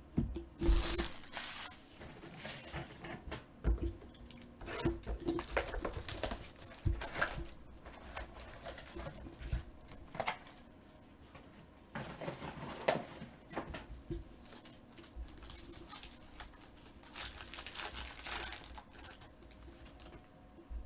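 Trading card pack wrappers being torn open and crinkled, with cards shuffled and handled: irregular rustling and crinkling throughout.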